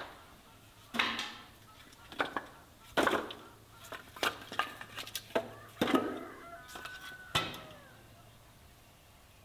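Split firewood logs knocking and clattering against each other and the stove as they are handled and stacked, about nine sharp wooden knocks spread over several seconds.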